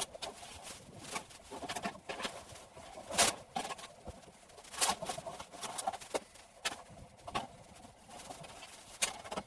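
Gear being handled in an SUV's cargo area: irregular knocks, clatters and rustles of nylon bags and equipment being moved, with the loudest knocks about three seconds in and near five seconds.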